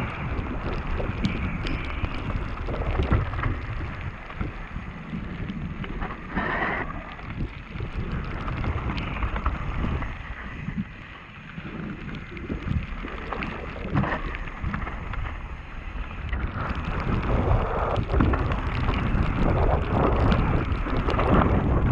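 Mountain bike riding down a wet gravel trail: wind rushing over the action camera's microphone, with tyres crunching on the gravel and a steady run of small clicks and rattles from stones and the bike. It eases off briefly about halfway through and grows louder again near the end.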